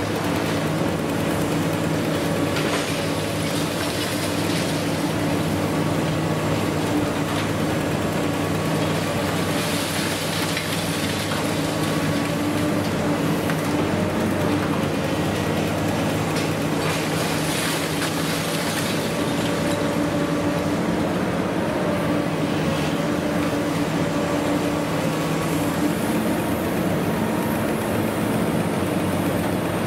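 Long-reach demolition excavator running steadily with an engine drone, its hydraulic jaw attachment crunching and tearing through reinforced concrete slabs, with scraping and clattering of concrete and rebar.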